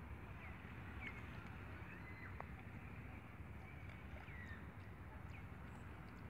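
Steady outdoor background noise with faint, short bird chirps about once a second.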